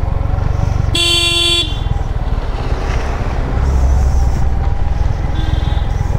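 A vehicle horn honks twice over the steady low rumble of a Yamaha MT-15 motorcycle's single-cylinder engine: a loud blast of about half a second about a second in, then a shorter, fainter one near the end.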